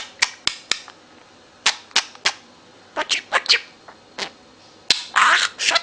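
A pet talking bird giving a string of short, sharp chirps and clicks, then a longer noisy call about five seconds in.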